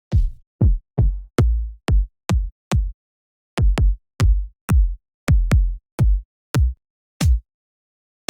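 Electronic kick drum hits playing alone in a syncopated pattern, about sixteen of them, each a sharp click that drops quickly in pitch to a low thud. There is a short break about three seconds in.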